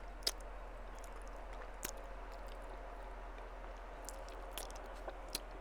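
Faint chewing and mouth sounds with a few sharp clicks, over a steady low hum.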